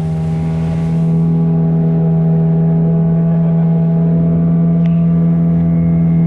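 Motorboat engine running at steady speed, a constant drone that gets a little louder about a second in and then holds.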